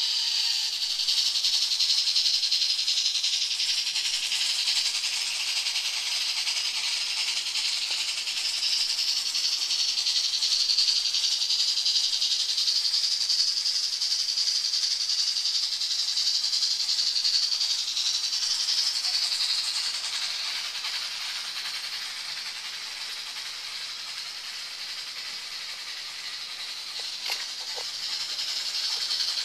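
N-scale model steam locomotives, a Class J and a 2-8-8-2 Mallet double-headed on Unitrack, running with a steady high-pitched rattling hiss from their motors and wheels on the rails. The hiss eases somewhat after about twenty seconds, and there is a brief click near the end.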